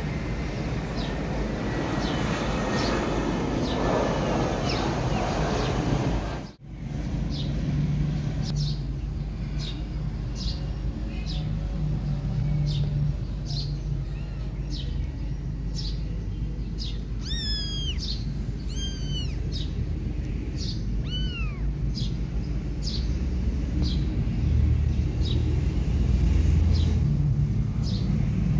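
Outdoor ambience with a steady low rumble and a bird repeating a short high chirp about once a second, with a few high-pitched kitten mews about two-thirds of the way through.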